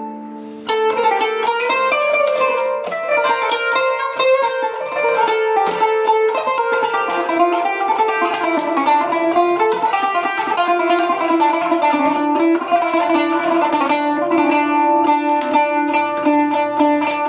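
Kanun, the Turkish plucked zither, playing an improvised taksim in makam Nihavend. A held note gives way under a second in to fast, dense runs of plucked notes.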